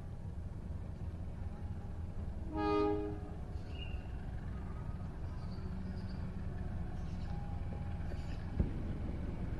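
Diesel locomotive horn on an approaching train, one short chord-like blast about three seconds in, over a steady low rumble. A single sharp knock near the end.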